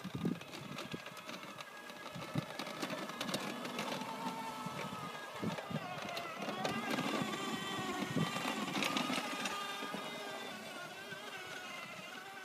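Child's small ride-on quad bike's motor whining as it drives through snow, its pitch wavering up and down and loudest as it passes close, about two-thirds of the way in, then fading.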